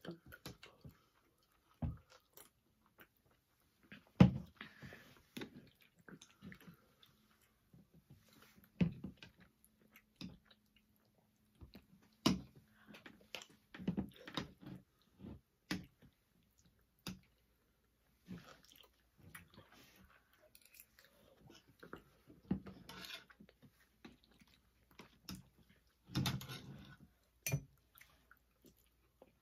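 Two people chewing mouthfuls of pasta in tomato sauce, with scattered sharp clicks of metal forks against plastic bowls.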